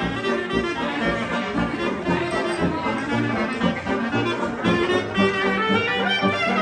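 Live traditional jazz: a clarinet plays the lead over a rhythm section of piano and sousaphone, with the bass moving note by note underneath.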